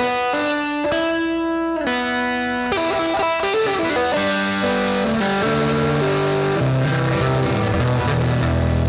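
Distorted electric guitar played through a Headrush pedalboard with the reverb set to its 'Garage' preset: picked notes and chords ringing out, shifting to lower, denser chords about halfway through.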